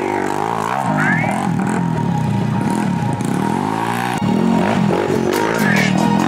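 Racing quad (ATV) engines revving hard, their pitch rising and falling over and over as the riders work the throttle through a wooded trail section.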